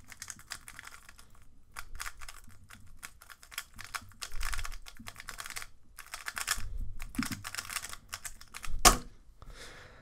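Angstrom-setup MoYu RS3M 2020 magnetic 3x3 speedcube turned rapidly through a solve: dense runs of quick plastic clicks and clacks with short pauses. About nine seconds in comes a single sharp slap, the loudest sound, as hands come down on the Speed Stacks timer pads to stop it.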